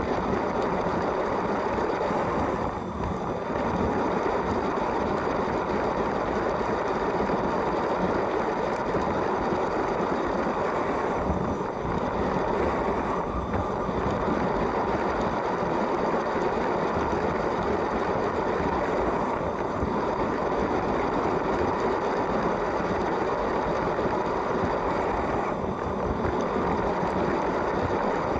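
LEGO train's electric motor and plastic wheels running steadily over plastic track, a continuous rattling rumble with a few brief dips.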